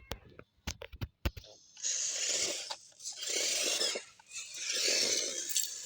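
A few sharp knocks, then three rough scraping bursts of about a second each.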